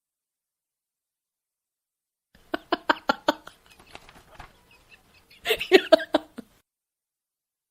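A woman laughing in two bursts: a quick run of short ha's about two and a half seconds in, then a louder burst a few seconds later.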